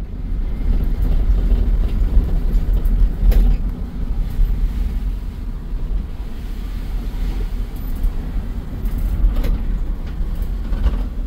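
Road and engine noise inside a moving vehicle's cab: a loud, steady low rumble with a few light clicks.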